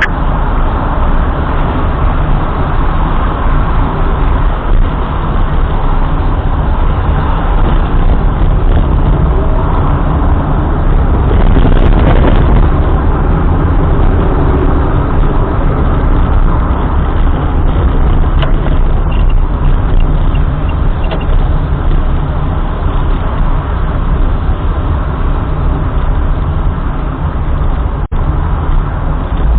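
Steady, loud rumbling noise of a car driving along a road: engine and tyre noise with no pauses.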